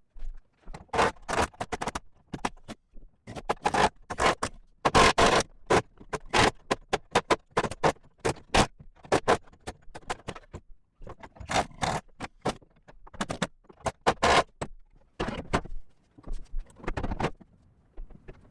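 Sheet steel being handled and worked by hand: a run of short, irregular scrapes and knocks of metal on metal.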